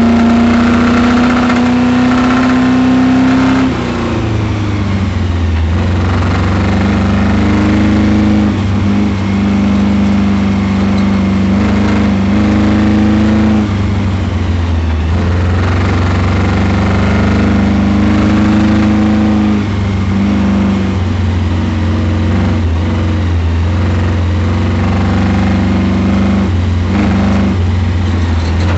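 Camaro engine running hard on an autocross course, its pitch dropping and rising again every few seconds. The engine has a spun bearing and is making lots of noise under the hood.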